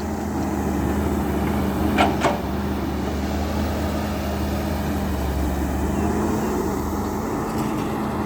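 Hydraulic excavator's diesel engine running steadily under load as it works, with one short sharp sound about two seconds in.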